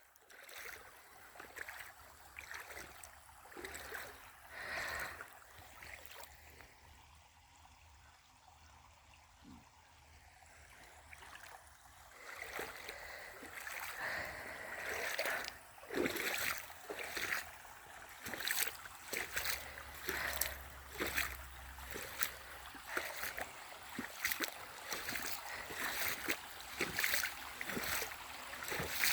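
Shallow creek water trickling, with irregular splashes and sloshes of footsteps wading through it. The splashing is sparse at first, goes nearly quiet for a few seconds, then grows busier from about halfway on.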